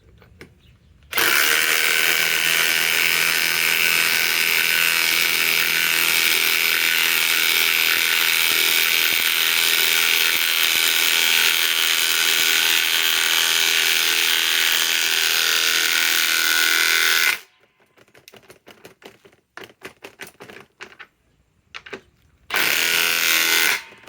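RIDGID R872081 subcompact impact wrench on a Flex 6 Ah stacked lithium battery, hammering steadily for about sixteen seconds and then stopping. A few short clicks and knocks follow, and near the end the wrench fires again for about a second.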